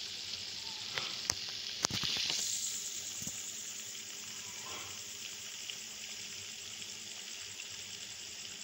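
Flour-coated chicken strips deep-frying in hot oil: a steady sizzling hiss, with a few sharp clicks in the first two seconds. The hiss swells slightly about two seconds in, then slowly eases. This is the first of two fryings.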